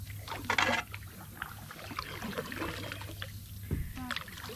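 Kayak paddling through still water: a paddle dipping and dripping, with a short splash a little over half a second in and light knocks against the plastic hull.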